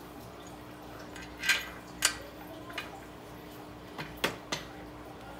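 Metal hardware and tools clinking as bolts and nuts are handled during assembly: a sharp clink about one and a half seconds in, another half a second later, then a quick run of three near the end.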